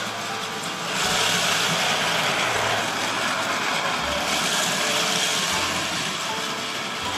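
Plarail toy shinkansen trains running at high speed on plastic track: a steady whir of their small battery motors with the rattle of plastic wheels on the rails. It grows louder about a second in as a train passes close by and eases a little after about four seconds.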